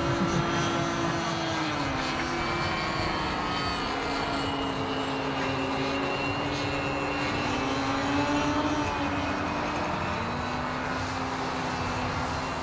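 Nitro (glow-fuel) engine of an Avicraft Panic RC biplane in flight: a steady buzzing drone whose pitch slides down and back up several times as the plane manoeuvres.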